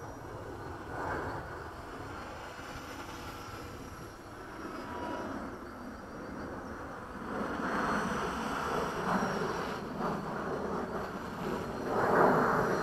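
Align T-Rex 500 radio-controlled helicopter flying at a distance, its rotor and motor noise rising and falling, loudest near the end.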